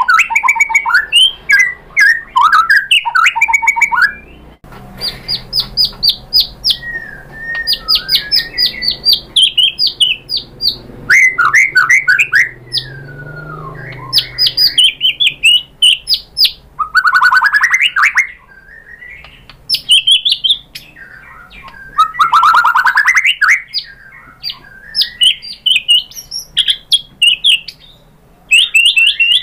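White-rumped shama singing a loud, varied song of rapid chattering notes and sweeping whistles, phrase after phrase with short pauses, packed with mimicked phrases (isian).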